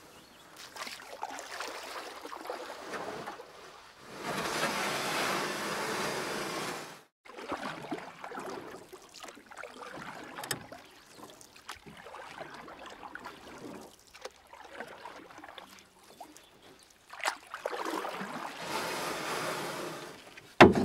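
Water swishing and splashing around a kayak being paddled, swelling and fading over a few seconds at a time, with one sharp knock near the end that is the loudest sound.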